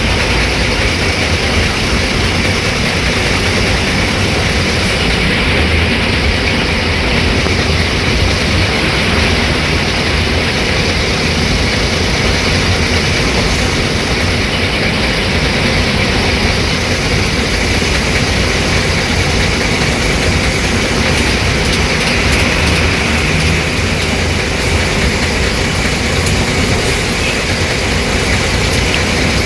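Tata 1510 bus's diesel engine running steadily, a constant low rumble with no change in speed.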